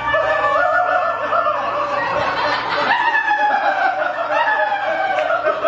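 An actor's high-pitched cackling laugh, a run of drawn-out cries that fall in pitch, over and over.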